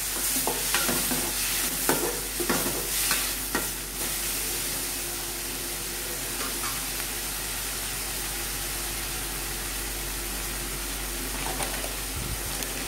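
Onions, tomato and green chillies frying in oil in a metal kadai, being sautéed until the raw smell of the ginger-garlic paste cooks off. A metal slotted spatula scrapes and clatters against the pan for about the first four seconds, then a steady sizzle carries on, with one small clatter near the end.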